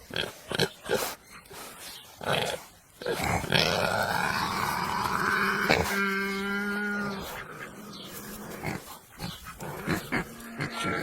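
Pigs grunting in short bursts, with a long rising squeal about a third of the way in, then a steady pitched squeal lasting about a second, and more grunts after it.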